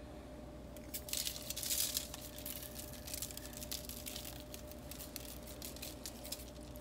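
Spice shaker jar of dry seasoning shaken over a foil-lined tray of vegetables: the granules rattle in the jar and scatter onto the foil as a run of quick, light ticks, busiest about a second in.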